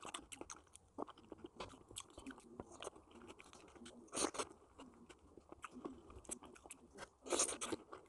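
Quiet close-up chewing of soft, ripe papaya: many small wet mouth clicks, with two louder noises about four seconds and seven seconds in.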